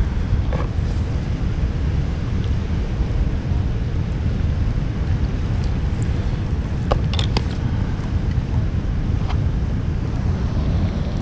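Wind buffeting the microphone: a steady low rumble, with a few small clicks about seven seconds in and another a couple of seconds later.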